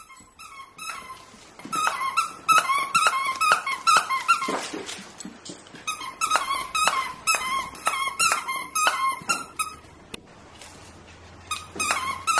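Whippets barking in quick, high-pitched runs of about four barks a second, in three bouts with short pauses between.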